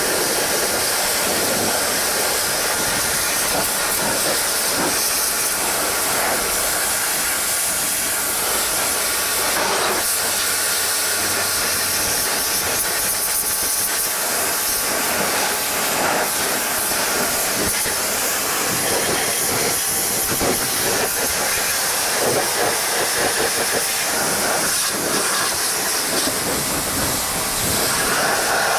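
Pressure washer jet spraying water against a tractor's rear hitch linkage: a steady, loud hiss of high-pressure spray.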